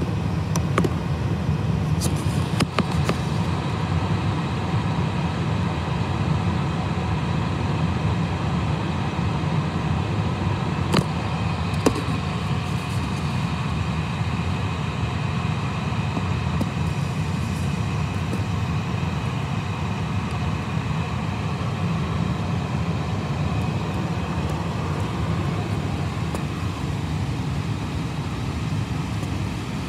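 Steady low rumble of an Airbus A320 at idle, heard from inside its cabin, with a few brief clicks.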